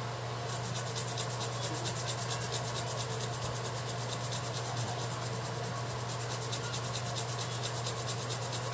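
Small brush scrubbing back and forth across an ECU circuit board, a fast, even scratching of about five strokes a second that starts about half a second in. It runs over a steady low electrical hum.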